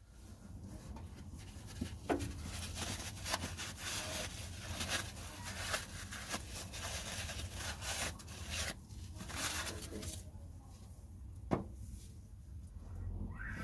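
A rag rubbing and wiping the oil filter mounting face and threaded stub on the engine block, cleaning the seat before a new filter is fitted. Quick scuffing strokes go on for the first eight seconds or so, then the sounds thin out, with a sharp click a few seconds before the end.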